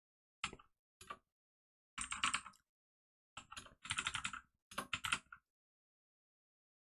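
Typing on a computer keyboard: two single keystrokes, then three quick runs of keystrokes, with dead silence between them.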